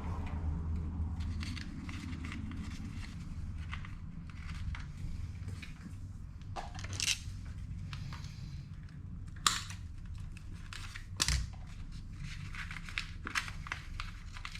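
Hand-work noises from scooter wiring: scattered small clicks and rustling as the nylon wrap and zip ties on the power wire are handled, with two sharper clicks a little past halfway. A steady low hum runs underneath.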